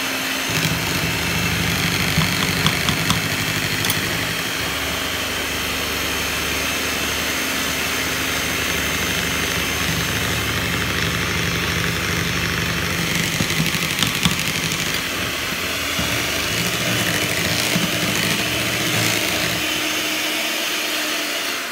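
Electric hand mixer running steadily, its beaters churning thick mashed sweet potato into pie batter, with a few ticks from a spatula working the bowl. Its pitch steps up slightly about two-thirds of the way through, and it stops at the very end.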